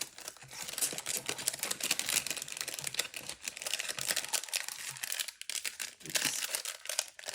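Packaging crinkling and rustling as it is handled, a dense run of small irregular crackles and clicks that eases off briefly midway and picks up again near the end.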